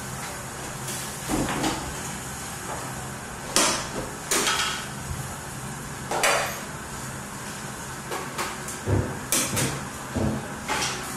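Improvised percussion on a chair, floor and pot lid: short scrapes and knocks, about seven of them at irregular intervals, over a steady low hum.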